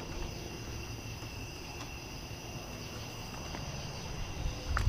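Steady high-pitched chorus of crickets, with a few faint clicks near the end.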